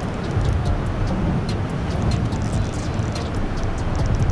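Baitcasting reel's drag clicking in short, irregular runs as a hooked bass pulls line, over a steady low rumble.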